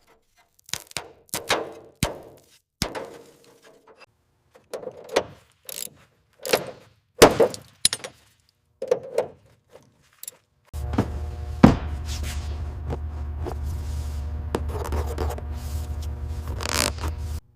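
A series of separate knocks, thunks and scrapes, like metal parts being handled and worked. About eleven seconds in, a steady low machine hum starts under more knocks and cuts off suddenly near the end.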